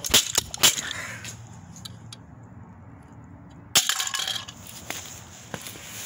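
Plastic R&T toilet fill valve being smashed on a concrete floor: three quick sharp plastic cracks at the start, then another loud hit a little under four seconds in, followed by a few light clatters of broken pieces.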